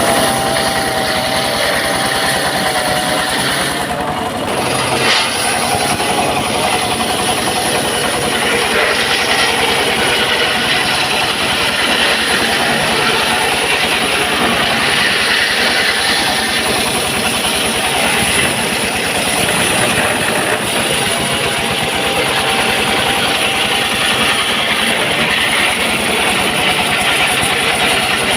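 Homemade circular sawmill running steadily and loud as its blade saws a long, heavy log of jowar wood, with a faint wavering tone under the cutting noise.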